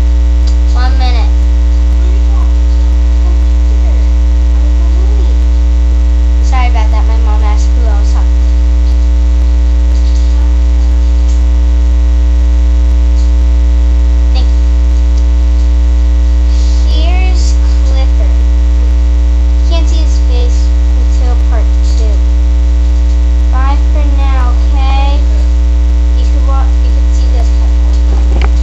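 Loud, steady electrical mains hum with a ladder of overtones, unchanging throughout, with a few faint snatches of voices now and then.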